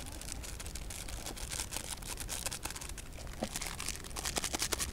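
Small plastic seasoning sachets crinkling and rustling in the hands as they are handled and opened, with a quick run of crackles near the end.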